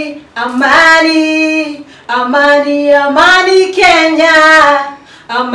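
A woman singing solo and unaccompanied: three phrases of long held notes, separated by short pauses for breath.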